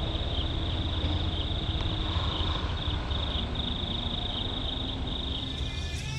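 Insects trilling continuously in a high, steady band with brief regular breaks, over a low rumble.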